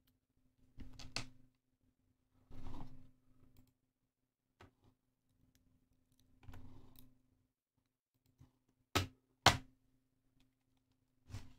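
Scattered computer clicks and desk knocks, mouse or keyboard, with two sharp clicks about half a second apart about nine seconds in and another near the end, over a faint low hum.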